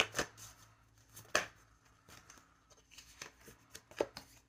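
A deck of oracle cards being shuffled by hand: a few sharp snaps and light rustles as the cards slap together. The loudest snap comes about a second and a half in, and a small cluster follows around three to four seconds in.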